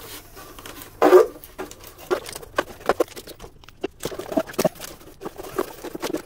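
A paint brush dabbing and stroking wet epoxy resin over the inside of a model boat hull, giving a run of soft, irregular taps and wet brushing strokes. There is a louder bump about a second in.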